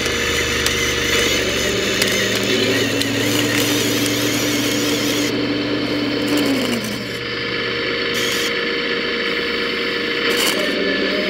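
Electric hydraulic pump of a 1:14 scale RC hydraulic excavator running with a steady whine that speeds up about two seconds in, drops back around seven seconds and speeds up again at the end, as the hydraulic functions are worked.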